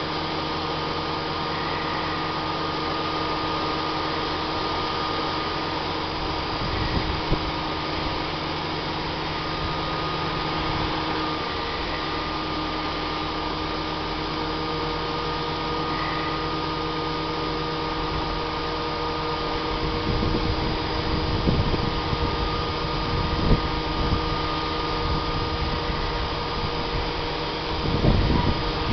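Steady mechanical hum with several held whining tones from a hi-rail truck's engine and hydraulic crane running while the boom and aerial basket are held aloft and moved; the tones shift about a third of the way in. Irregular low rumbles come in later on.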